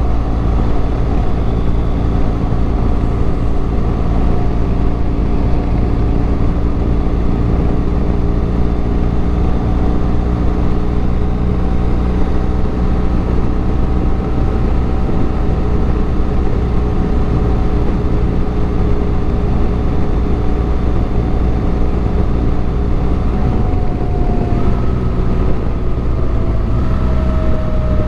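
Motorcycle engine running steadily at road speed with heavy wind rush. About 24 seconds in, the engine note drops slightly.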